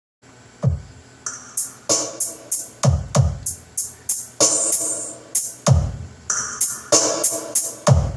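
Electronic dance music played through a small mobile sound system set to 20% volume: deep, booming drum-machine kicks that drop in pitch, with hi-hats and synth chords over them.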